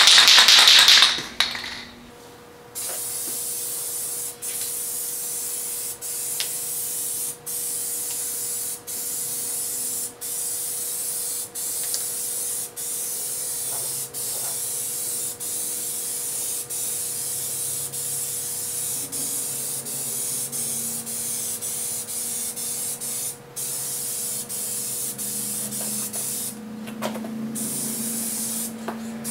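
Aerosol spray can of metallic paint rattling loudly as it is shaken for the first second or so, then spraying in a steady hiss broken by short pauses about every second and a half as each pass ends. This is the third coat going onto a bare car fender.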